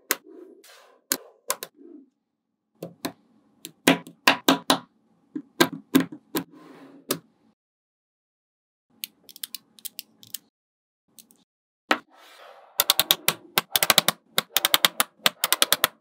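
Small magnetic balls clicking and snapping together as strips of them are joined and set down on a table. Scattered sharp clicks, a quiet pause around the middle, then a quick run of many clicks in the last few seconds.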